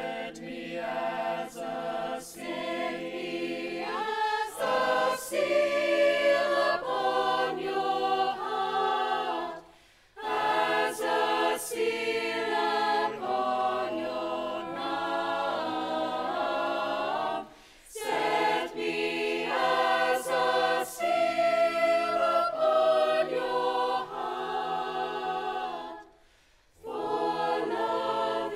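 Mixed-voice choir singing a slow sacred choral piece in sustained chords, the phrases broken by short pauses about 10, 18 and 26 seconds in.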